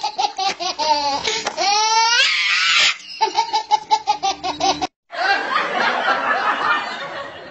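High-pitched laughter in rapid, evenly spaced 'ha-ha' pulses, broken about a second and a half in by a rising, wobbling glide. The laughter starts again at about three seconds, then cuts off suddenly just before five seconds, and a noisier stretch follows.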